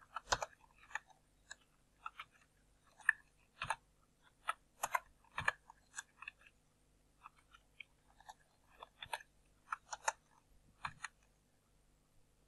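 Computer keyboard keystrokes: irregular single clicks and small quick clusters, typing out repeated line-break tags.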